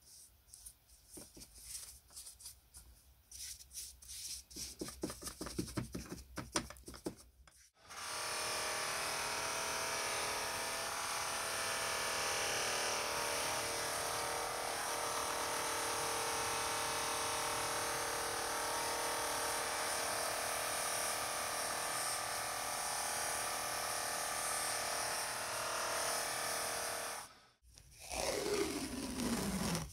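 A stiff brush scrubbing metal parts in a tray of cleaning liquid, in short strokes. Then a cloth buffing wheel runs steadily for about twenty seconds as a threaded steel part is polished on it. Near the end comes a whine that falls in pitch.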